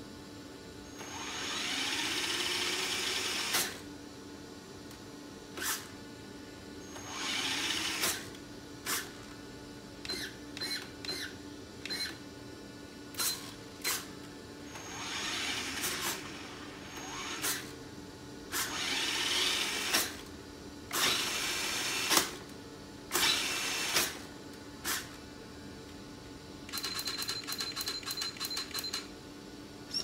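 Small servos in a radio-controlled 1:9 scale Batmobile Tumbler model whirring in repeated bursts of one to three seconds as the air-brake flaps and rear airfoil move, with sharp clicks between the bursts. Near the end comes a fast run of ticks lasting about two seconds, over a faint steady hum.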